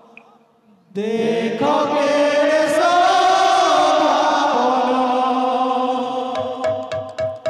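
Kirtan singers start a long, held devotional chant about a second in, after a brief pause. Near the end, sharp drum strokes from the kirtan's barrel drums come in under the held notes.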